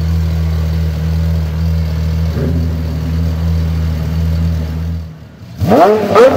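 Pagani Zonda 760 LM Roadster's 7.3-litre Mercedes-AMG V12 idling steadily. About five seconds in the idle cuts off, and near the end the engine is revved sharply twice in quick succession, the pitch rising and falling each time.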